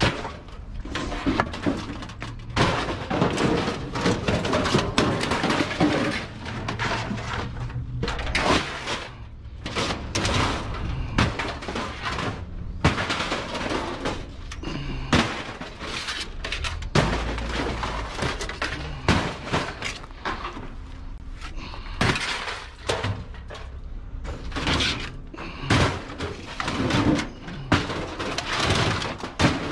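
Scrap metal being handled and thrown, a dense irregular run of clattering, crashing impacts with some ringing.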